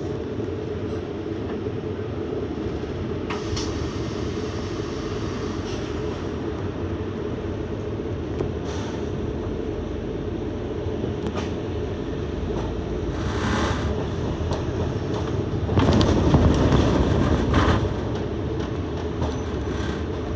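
Steady running hum and rattle of a double-decker bus heard from inside on the upper deck as it drives along, with a few brief knocks. A louder surge lasts about two seconds, beginning about sixteen seconds in.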